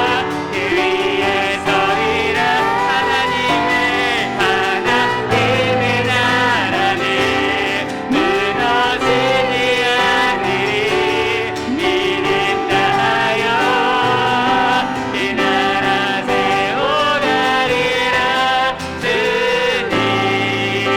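Church praise team singing a worship song, with sustained sung melody lines over piano accompaniment.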